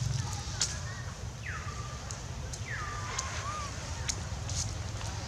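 Two short falling squeaky animal calls, one about a second and a half in and one near three seconds, over a steady low rumble with scattered clicks and rustles.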